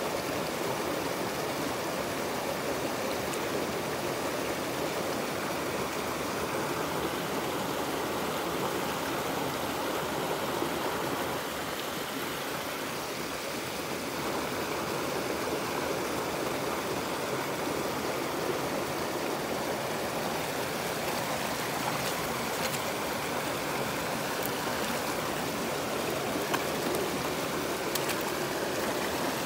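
A shallow rocky stream running steadily over a small cascade, a constant rush of water.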